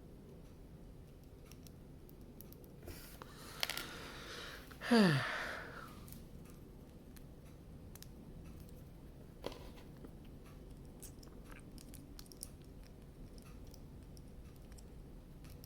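Small plastic clicks and taps of Lego minifigure parts being handled and fitted together. About three seconds in there is a short rustle, and about five seconds in a brief louder sound that slides steeply down in pitch.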